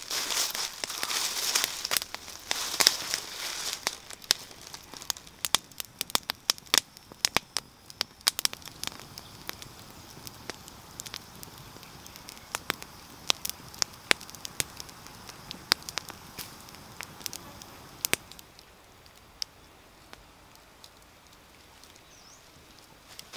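Wood campfire crackling, with many sharp pops that thin out and stop about three-quarters of the way through. A loud rustling noise fills the first few seconds.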